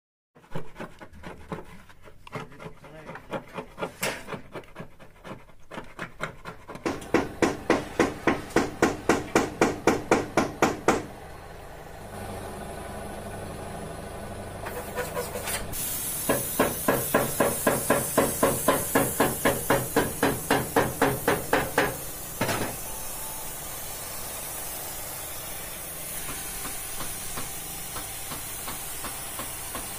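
Rhythmic rubbing or scraping strokes, about three a second, in two long runs. From about halfway through, a paint spray gun hisses steadily, continuing alone after the strokes stop near the end.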